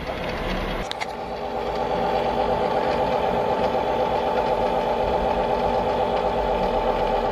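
Toy bubble machine running, its small motor and fan giving a steady hum that settles in just after a click about a second in.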